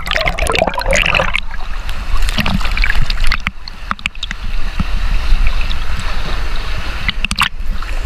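Pond water splashing, sloshing and gurgling right at the microphone as a swimmer in an inner tube paddles, the microphone held at and partly under the surface.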